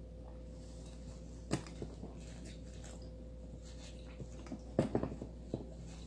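A man gulping and swallowing as he drinks straight from a glass soju bottle: a few short clicks of the swallows, the loudest about one and a half seconds in and again near five seconds in, over a steady hum.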